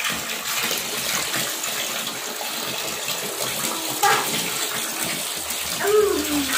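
A steady stream of running water pouring and splashing into a plastic tray of toy trucks as they are washed by hand.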